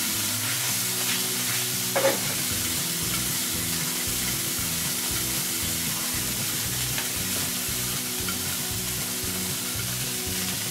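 Steady sizzling hiss of food frying on a barbecue grill, with a soft, shifting low hum beneath it. About two seconds in there is a single brief clink.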